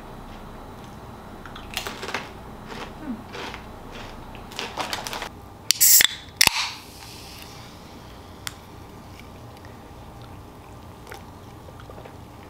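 Ring-pull on an aluminium energy-drink can opened about six seconds in: a sharp crack and a second pop, then a short hiss of escaping carbonation that fades. Before it come a few scattered short crackles and clicks.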